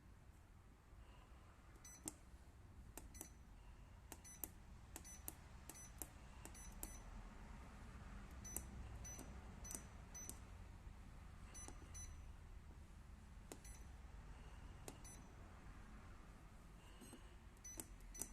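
Treadmill console keypad beeping as its keys are pressed: about two dozen short, high-pitched beeps at irregular intervals, each one a key registering, over a faint low hum.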